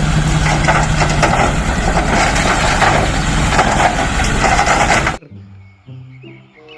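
Dump truck engine running loudly and steadily, then cutting off suddenly about five seconds in; quiet music with held notes follows.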